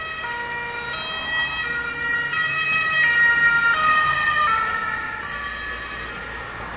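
Ambulance siren stepping back and forth between tones as it passes. It grows louder, peaks about three to four seconds in, then fades, and its pitch drops slightly as it goes by: the Doppler effect.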